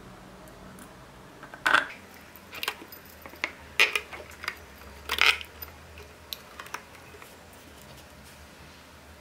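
Handling noise: a screw and washer clicking and scraping against a thin tin can and a stretched rubber balloon as the screw is pushed through the balloon. There are about half a dozen sharp clicks, the loudest near two, four and five seconds in.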